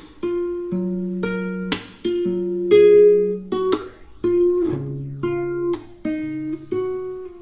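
Background music: an acoustic guitar playing plucked, ringing notes, with a quick strum about every two seconds.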